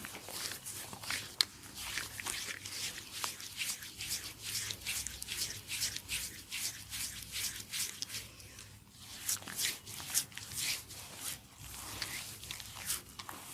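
Close-up rubbing and swishing of hands on skin during a facial cleanup and massage: quick strokes, several a second, with a sharp click a little over a second in.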